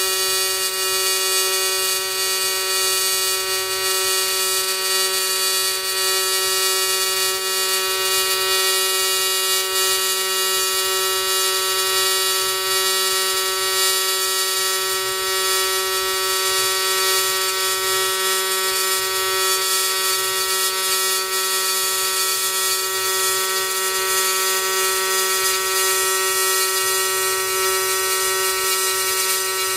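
AC TIG welding arc on thin aluminum, from an Everlast 210EXT inverter set to a triangular waveform, buzzing steadily at one pitch throughout.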